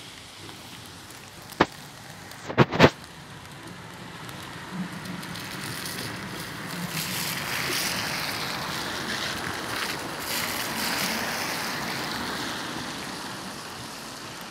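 Fløibanen funicular car running on its rails past below and away up the track: a broad rushing noise that swells from about four seconds in, peaks in the middle and fades near the end, over steady rain. Near the start, a single click and then a quick pair of sharp knocks.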